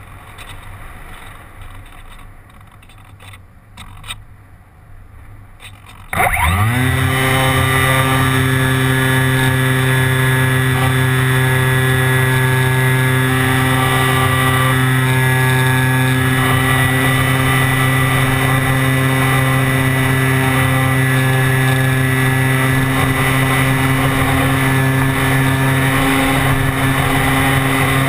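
Wind rushing past an RC glider in flight, then about six seconds in its electric motor spins up with a quick rising whine and runs at a steady pitch from then on.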